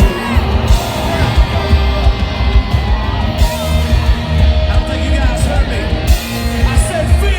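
Live country-rock band playing loudly, with heavy bass and drums, electric guitar and some singing, heard from the crowd.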